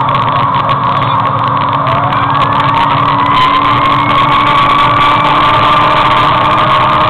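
Fire engine driving on the road, heard from inside the cab: a steady engine and road drone with a high whine that rises slightly in pitch partway through.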